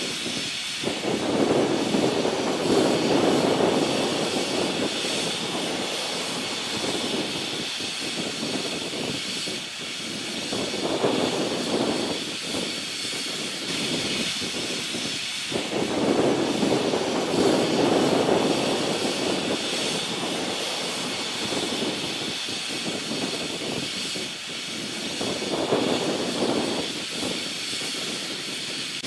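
Steam locomotive hissing steadily, with a rushing roar that swells and fades several times.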